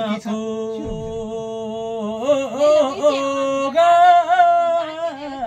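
A man singing a Karmarong song unaccompanied. He holds one long steady note, then breaks into wavering ornamented turns that climb to a higher, louder note about four seconds in, and then fall back.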